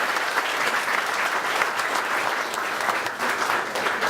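Wedding guests applauding and cheering steadily after the couple's first kiss as husband and wife.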